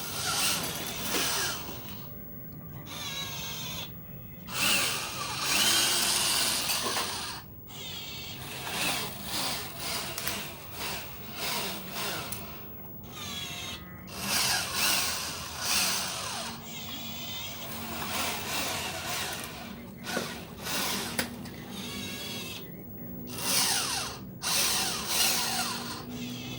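Small electric motor and gearbox of a cheap toy RC truck whining in repeated bursts of a few seconds, its pitch rising and falling as it speeds up and slows down, with short pauses between runs.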